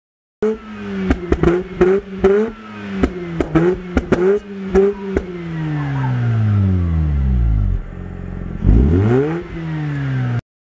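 Mazda RX-8's twin-rotor Wankel rotary engine heard at the exhaust, revved high with about a dozen sharp pops as unburnt fuel ignites in the exhaust and spits flame from the tailpipe. The revs then fall away steadily, and the engine is blipped once more near the end.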